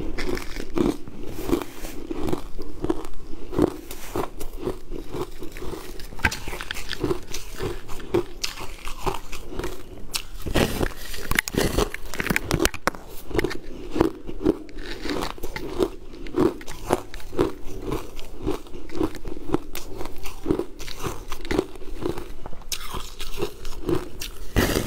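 Close-up crunching and chewing of a frozen purple sweet-ice slab: a steady run of crisp bites and chews, about two a second.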